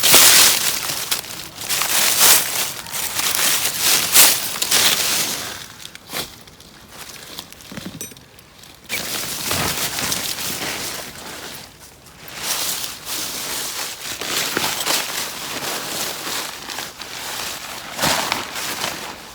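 Irregular rustling and crinkling handling noise in loud, uneven bursts, dropping away for a few seconds before the middle and then picking up again.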